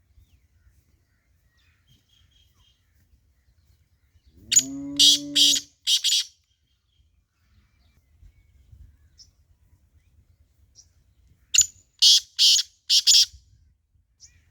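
A teetar (francolin) calling twice, about four seconds in and again near the end. Each phrase is four or five loud, harsh notes in quick succession.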